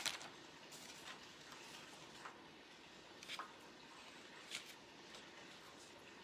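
Near silence: quiet room tone with a few faint clicks, one right at the start and others about two, three and four and a half seconds in.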